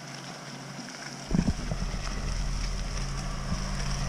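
A thump about a second in, then a vehicle engine's steady low hum.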